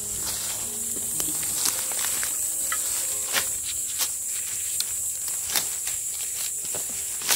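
Footsteps crunching on dry fallen leaves, a handful of irregular crunches and twig snaps, over a steady high-pitched chorus of autumn insects. A tail of background music fades out in the first second or so.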